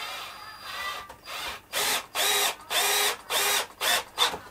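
Cordless drill-driver driving screws into the wooden box panels, first running softly, then in a quick string of short, loud trigger spurts in the second half.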